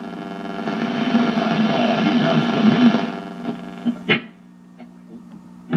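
Victor R-39 antique radio being tuned across the dial: a station's programme fades out about three seconds in, a brief sweep of tuning noise follows about a second later, then the set's steady hum between stations.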